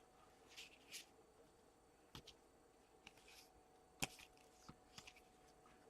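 Near silence, with a few faint taps and rustles from hockey cards being handled as packs are opened, the clearest tap about four seconds in.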